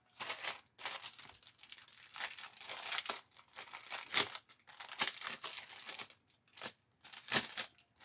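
Clear plastic packaging sleeve crinkling and rustling as it is opened by hand and the contents are slid out, in irregular bursts with two sharper crackles, about four seconds in and near the end.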